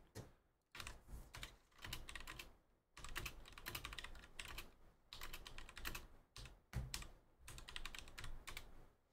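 Typing on a computer keyboard: faint runs of quick key clicks, broken by short pauses.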